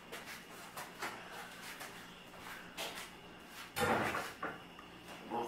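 Knocks, bumps and scrapes of a golf cart's body shell being lifted off the chassis and handled, with a louder knock and rustle about four seconds in.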